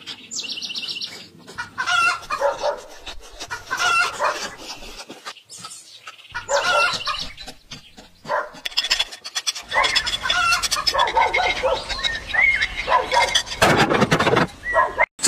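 A chicken clucking over and over, one short call every second or two, with a quick high bird trill near the start.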